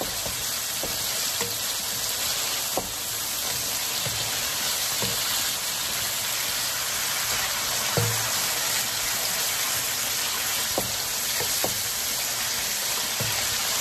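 Diced raw chicken and garlic sizzling in oil in a nonstick wok, with a steady high hiss. A wooden spatula stirring the pieces gives a light knock or scrape against the pan every second or two.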